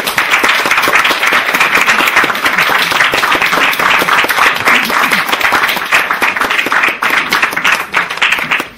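An audience of seated guests applauding steadily, the clapping thinning out near the end.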